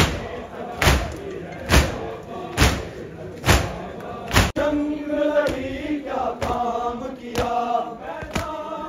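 A crowd of Shia mourners beating their chests in unison (matam): a heavy thud about once a second, with many men chanting together in time. About halfway there is an abrupt cut, after which the chanting voices are clearer over the continuing beats.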